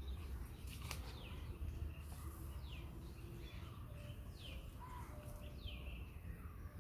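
Birds calling: several short chirps that each slide downward in pitch, spaced a second or two apart, over a low steady rumble.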